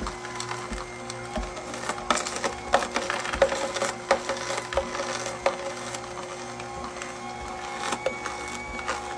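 KEDEMAS AMR520 slow masticating juicer running: a steady motor hum under irregular cracks and crunches as the auger crushes carrot and celery.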